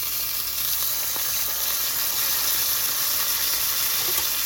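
Beef steak sizzling steadily in hot oil in a cast-iron skillet, with garlic cloves and thyme frying alongside, just after being turned over on a low-to-medium flame.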